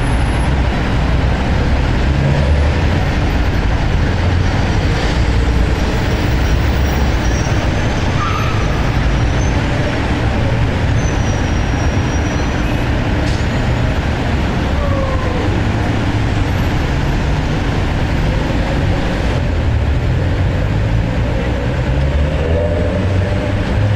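New York City street traffic: a dense, steady wash of passing vehicles with a heavy low engine rumble underneath.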